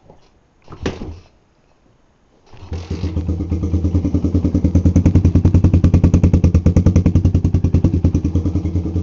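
2002 Honda XR80R's single-cylinder four-stroke engine being kick-started cold without choke: a short burst about a second in, then the engine catches about two and a half seconds in and idles steadily.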